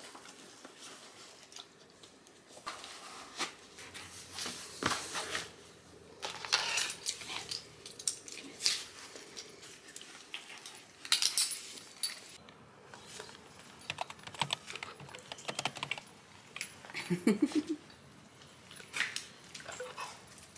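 Irregular rustling, tapping and clicking as sneakers are pulled on and fastened on a floor, with a dog close by; near the end comes a short rising whine.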